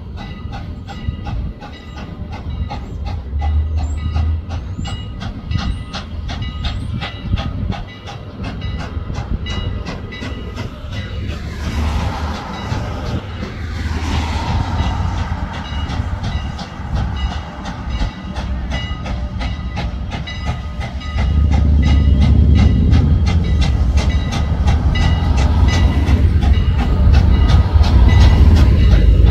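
Strasburg Rail Road steam locomotive No. 89, a 2-6-0, running slowly toward the station with a steady, even beat. A burst of steam hiss comes about twelve seconds in. The sound grows louder and heavier in the low end from about twenty-one seconds on as the engine draws near.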